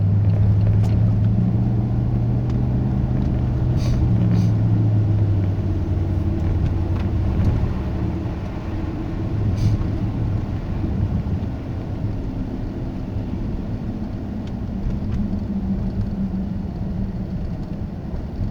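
Car engine and road noise heard from inside the cabin: a steady low hum that eases off after about five seconds. A few faint clicks sound over it.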